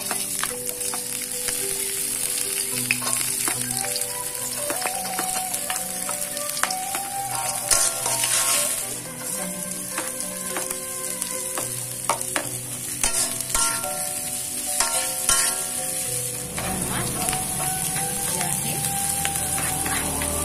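Sliced garlic, shallots and chilies sizzling in hot oil in a wok, with a metal spatula scraping and clicking against the pan as they are stir-fried.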